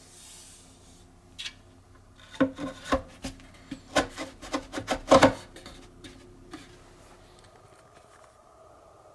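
3D-printed plastic bass-reflex port tube being pushed through the hole in an MDF subwoofer enclosure and seated in its flange: a run of scraping, rubbing and knocking of plastic against wood, loudest about five seconds in, then it stops.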